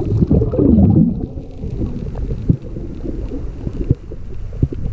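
Underwater sound picked up by a camera in a waterproof housing: a muffled low rumble of moving water with scattered knocks, and a few wavering tones in the first second.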